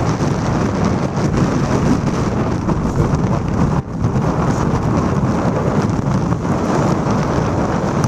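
High wind buffeting the plastic-wrapped camcorder's microphone: a loud, steady rumble with storm surf breaking on the rocks underneath. The sound dips for an instant just before four seconds in.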